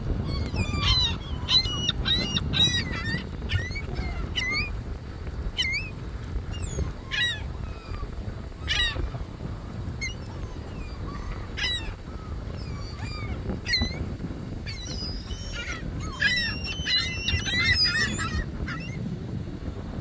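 A flock of seagulls calling: many short, overlapping squawks, thickest near the end, over a low steady rumble.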